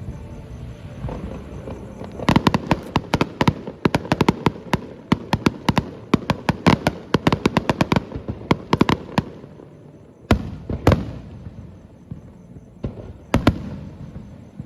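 Aerial fireworks shells bursting, heard from about 390 metres away. A rapid string of sharp bangs and crackles runs from about two to nine seconds in, followed by three single, spaced-out bangs near the end.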